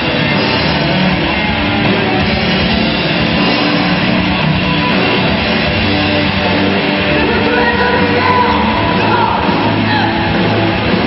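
A live rock band playing loud, with electric guitars over drums.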